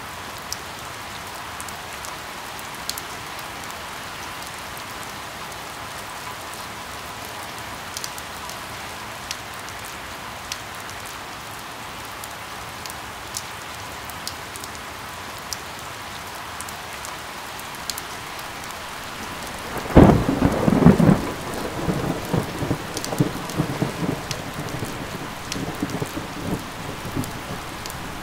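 Steady rain falling, with scattered sharp drop ticks. About twenty seconds in, a sudden loud thunderclap breaks in, followed by rolling rumbles of thunder that slowly ease off.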